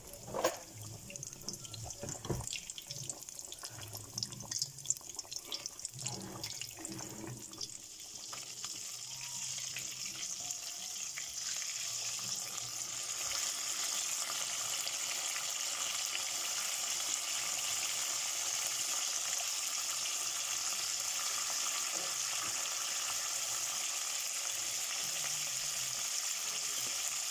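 Belyashi (meat-filled dough pies) deep-frying in hot oil in an aluminium kazan on medium heat: a steady sizzling hiss. It has scattered crackles in the first several seconds, then grows louder about ten seconds in and holds.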